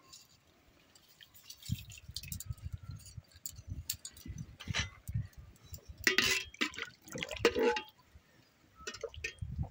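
Whole spices tipped into a pot of hot water, with irregular small splashes and drips as they go in.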